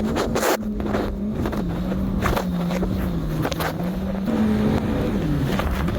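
Jet ski engine running under way, a steady drone whose pitch sags and picks up again a couple of times, with short rushes of splashing water and wind noise over it.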